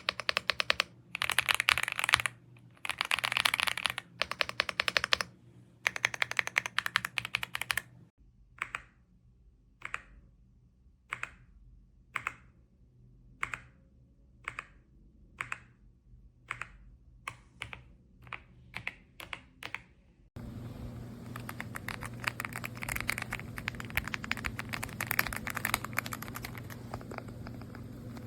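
Typing on an AULA F75 mechanical keyboard with pre-lubed Reaper switches. It starts with rapid bursts of keystrokes, then single key presses a little under a second apart. After an abrupt cut about two-thirds through, there is continuous fast typing over a low hum.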